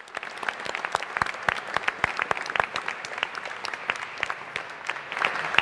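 Audience applauding, many people clapping together.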